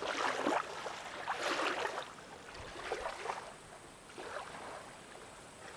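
Small waves washing onto a sandy lake shore, coming in about four soft swells of wash that fade toward the end.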